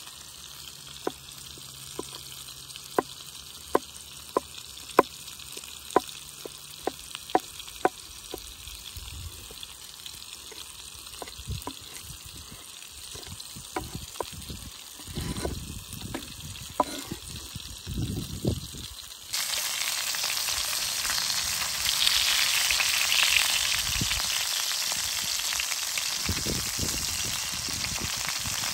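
A large forged knife chopping garlic on a wooden cutting board: a quick run of sharp knocks, then softer knocks and scraping as the blade works the garlic. About two thirds of the way through, it cuts suddenly to bacon-wrapped chicken sizzling steadily in hot fat in a cast-iron pan.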